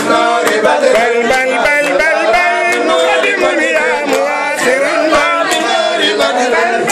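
Men singing together with rhythmic handclaps keeping a steady beat.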